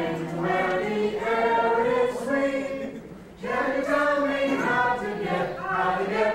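A group of voices singing a song together, with a short pause about three seconds in.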